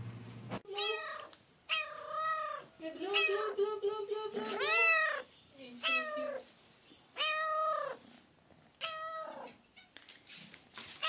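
A young black-and-white cat meowing repeatedly, about seven meows with short gaps between them, the loudest about five seconds in.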